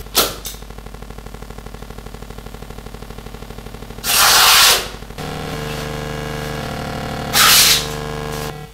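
Live electronic drone of several held tones, with a fast even pulsing through the first half, from a mixing desk fed by sensor probes in liquid. Three loud bursts of hissing noise cut through it: just after the start, about four seconds in lasting most of a second, and again about seven and a half seconds in.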